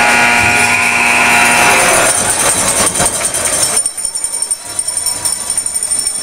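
Arena sound during an ice hockey game: a steady held tone for about the first two seconds, then scattered clicks and a thinner high hiss as play carries on.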